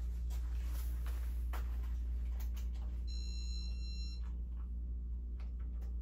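Casablanca Inteli-Touch ceiling fan's electronic chime sounding once about three seconds in: a brief beep of several high tones together, over a steady low hum and a few faint clicks. The owner does not know why the chimes sound the way they do.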